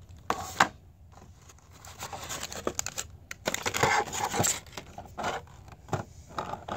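Clear plastic toy packaging being handled: a sharp click about half a second in, then a few seconds of crinkling and rustling with small clicks.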